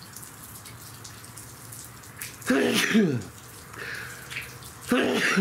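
A man's held-in sneezes, set off by the smell of ghost pepper hot sauce: two loud, stifled bursts with a falling voice, the first about two and a half seconds in and the second near the end.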